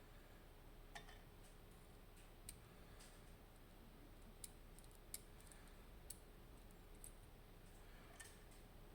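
Faint, sparse small metallic clicks, about seven over several seconds, as the discs of an Abus Plus disc-detainer lock core are handled and removed during disassembly.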